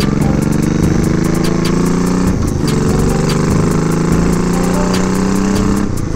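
1987 Honda Shadow VT700's V-twin engine accelerating through the gears while riding: the pitch climbs, drops briefly at a gear change about two and a half seconds in, then climbs again, with another change near the end. The bike runs strongly on a newly fitted vacuum-operated fuel pump.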